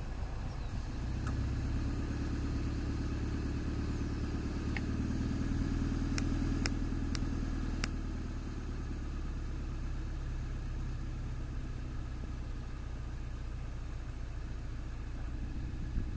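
Road traffic: a motor vehicle's engine rumble that swells over the first few seconds and eases off by about eight seconds in, then a steady background drone. Four sharp clicks come close together near the middle.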